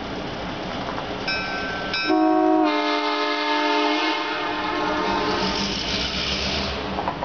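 Air horn of an EMD F9 diesel locomotive: a short note about a second in, then a louder, longer chord of several notes lasting about two seconds that fades away, with the diesel engine running underneath.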